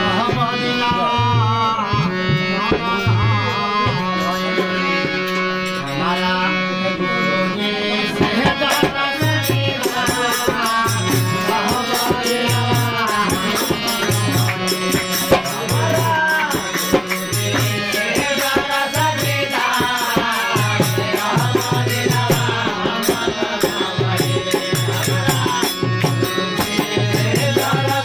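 Devotional bhajan music: harmonium playing steady held notes, then from about eight seconds in a man sings over it, with small hand cymbals and a drum keeping a regular beat.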